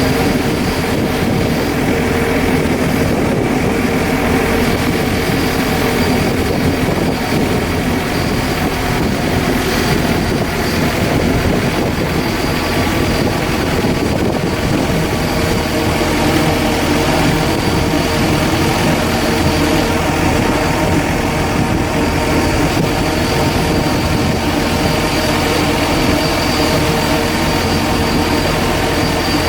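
A large engine running steadily at a constant speed, with a continuous mechanical drone and a faint high steady whine.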